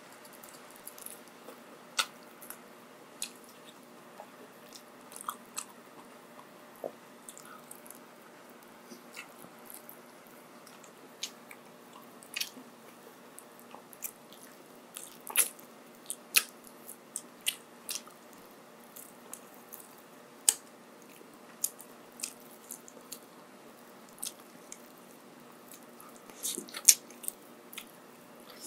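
Close-miked eating: chewing and biting with irregular sharp crunchy and wet mouth clicks, a quick cluster of them near the end.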